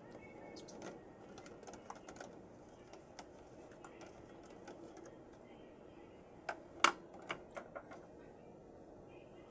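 A person eating vegetables close to the microphone: scattered, irregular sharp clicks and crunches of chewing, with a louder cluster about two-thirds of the way through.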